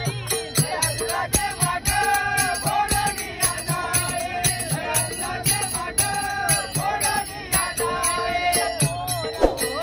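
Group of men singing a Marathi gavlan bhajan, one voice leading, with jingling hand percussion keeping a steady beat.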